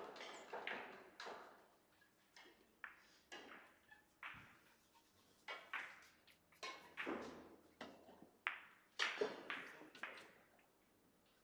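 Russian pyramid billiard balls clacking: a cue strike and ball collisions, then a scattered run of sharp clicks and knocks with a short echo of the hall, the loudest about nine seconds in.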